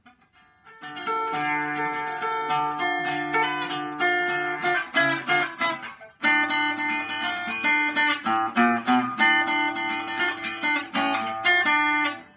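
Acoustic-electric guitar played through its under-saddle pickup: picked notes and chords, with a short break about six seconds in before the playing resumes.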